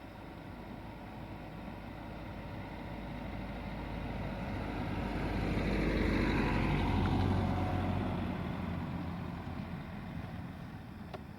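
A vehicle passing by: it grows louder over several seconds, peaks about two-thirds of the way through with its pitch dropping as it goes past, then fades away.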